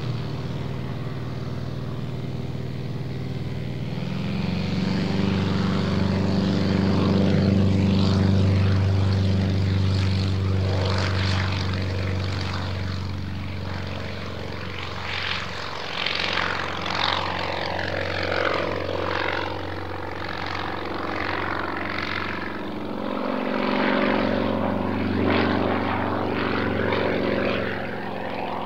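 Yak-52's nine-cylinder radial engine and propeller running. About four seconds in it goes louder and higher as power comes up for the takeoff run. It then drones on, swelling and fading as the aircraft climbs away.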